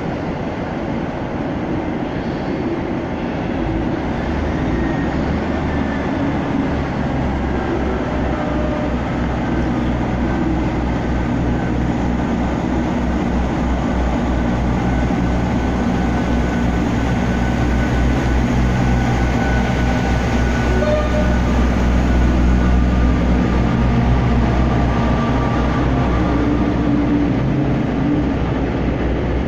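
Class 158 diesel multiple unit pulling away under power, its diesel engines running with a steady low drone and rumble that grows gradually louder as the train draws past.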